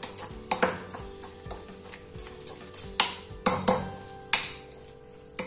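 A spoon stirring and scraping a thick, wet mix of grated bottle gourd, potato and gram flour in a glass bowl, with irregular clicks of the spoon against the glass and a few louder knocks about three seconds in. A faint steady hum underneath.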